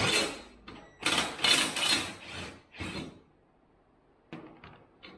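Several short bursts of metal scraping and clattering as bolts are worked loose from the front mounting plate of a side-by-side, followed by a few faint clicks.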